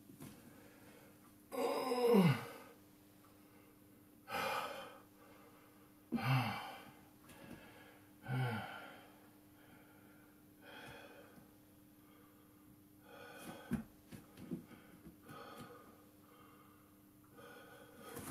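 A man breathing hard from exertion, with loud exhales about every two seconds. The first few carry a falling voiced groan, and the breaths grow fainter and further apart toward the end.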